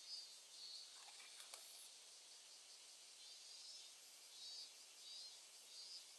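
Faint insects chirping outdoors in a steady, repeating pulse, with a brief faint rustle about a second and a half in.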